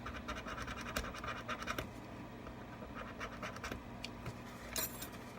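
Rapid scratching strokes against the iPad Pro 10.5's aluminium housing as leftover screen adhesive is cleared off. The strokes are dense for the first couple of seconds, then sparser, with a short louder scrape near the end.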